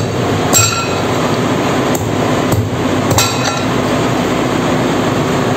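Metal tools striking the steel bearing housing parts of a centrifugal ballast pump being dismantled: several sharp metallic strikes over a loud, steady workshop noise.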